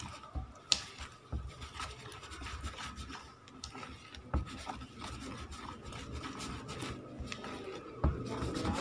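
A plastic spoon stirring and scraping tapioca starch mixed with a little hot water around a plastic bowl: irregular scratchy rubbing strokes with scattered clicks, one sharp click near the start.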